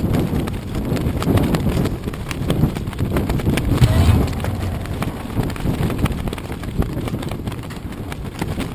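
Wind gusting on the camera's microphone over choppy river water slapping and knocking against the hull of a moored floating clubhouse, a low, uneven rumble with irregular slaps.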